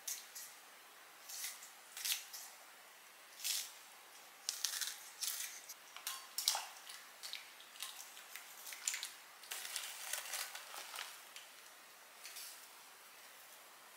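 Kitchen utensil handling: a nylon spatula scraping and clicking against a ceramic tray, a pot and a ceramic bowl as a pancake is moved and rice-cake soup is scraped out of the pot into the bowl. Scattered short scrapes and clinks, busiest in the middle, dying away near the end.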